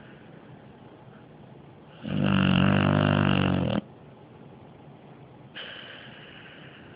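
Sleeping pit bull snoring super loud: one long, loud snore about two seconds in, lasting nearly two seconds, then softer breathing and a fainter snore near the end.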